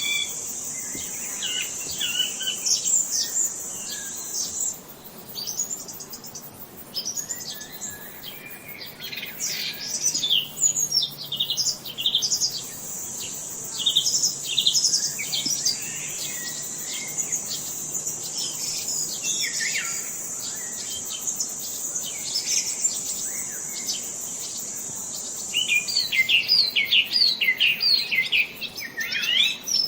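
Several birds chirping and singing at once, a dense mix of quick high chirps and warbling phrases. A steady high-pitched buzz runs beneath them for the first few seconds and again through the middle, cutting off suddenly near the end, when the chirping grows busier.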